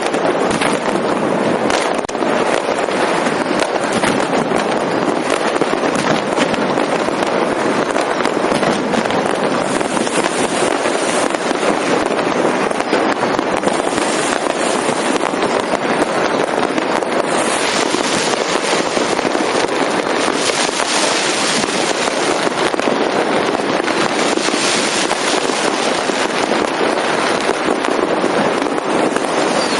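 A dense, unbroken barrage of fireworks and firecrackers going off all at once: countless overlapping bangs and crackles merging into one steady din. There are louder spells of sharp, high crackling a little past halfway through.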